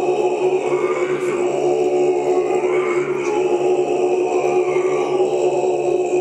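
Tibetan Buddhist monks chanting together in deep multiphonic throat-singing voices. They hold one low drone steadily, while slow vowel changes make its overtones glide up and down above it.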